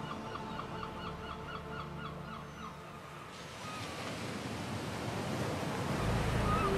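Ambient background soundtrack of nature-like sounds. A quick run of short rising chirps, about five a second, plays over a steady wash of surf-like noise and soft held tones for the first couple of seconds. About six seconds in, a deeper rumble and new held tones come in and the sound grows louder.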